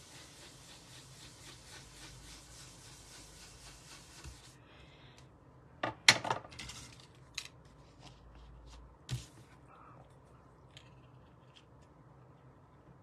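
Ink blending tool rubbed briskly over cardstock, a steady scratchy swishing that stops about four and a half seconds in. After that come a few sharp clicks and knocks of craft tools being handled and set down, the loudest about six seconds in and another about nine seconds in.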